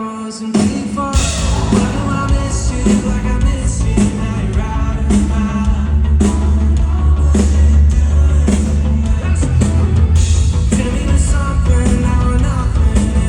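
A live band playing, with singing. Drums and bass come in hard about half a second in and then drive a steady beat.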